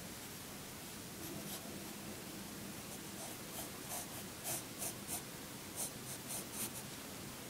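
Graphite pencil sketching on paper: a run of short, quick strokes scratching the paper, starting about a second in and thickest in the second half, stopping shortly before the end.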